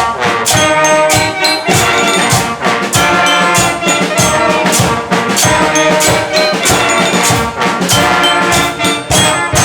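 Children's school band playing live: loud brass with drum and cymbal strikes keeping a steady beat about twice a second.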